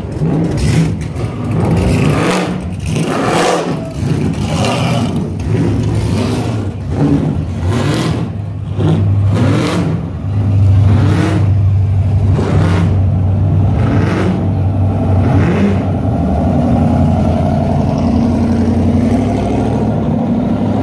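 Modified street-machine car engines rolling slowly past, revved in a string of short surges during the first half. From about halfway a loud, steady low engine rumble takes over as a supercharged car goes by.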